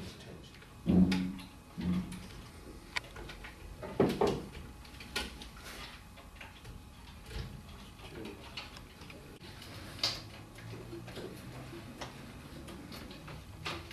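Irregular light clicks and knocks, a second or more apart, with two louder knocks about a second and four seconds in.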